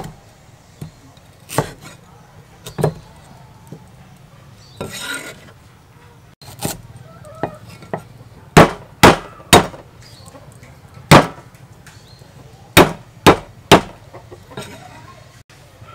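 Cleaver striking a thick round wooden chopping block while cutting and crushing pieces of root. Scattered sharp knocks, a short scrape about five seconds in, then the loudest whacks in two quick runs of three in the second half as the pieces are smashed flat.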